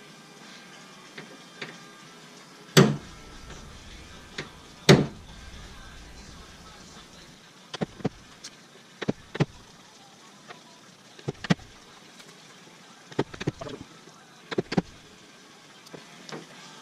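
Hammer striking a center punch against the Jeep Wrangler's hood to mark drill points through a paper template: two hard strikes about two seconds apart, then lighter taps, mostly in quick pairs every second or two. These punch marks set the pilot holes for drilling.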